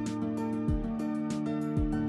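Background music with a steady beat: sustained synth or guitar tones over a bass line, with regular kick drum and hi-hat.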